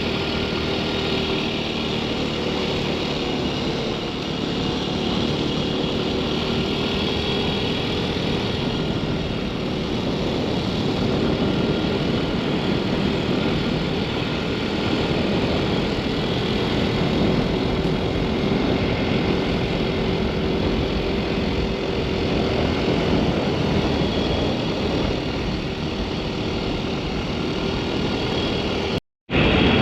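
A motor vehicle's engine running steadily while on the move, with a constant noisy rush over it. The sound cuts out for a moment near the end, then resumes.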